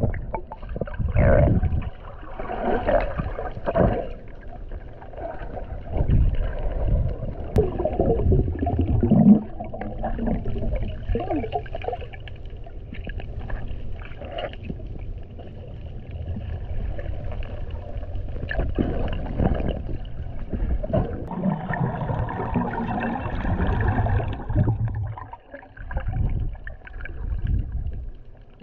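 Muffled underwater sound picked up by a submerged camera: water rumbling and gurgling, with irregular louder surges of swirling water and bubbles as swimmers move and dive.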